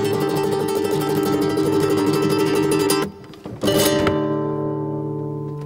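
Background music on a plucked string instrument: a rapid tremolo strum for about three seconds, a short dip, then a fresh strum whose notes ring on and slowly fade.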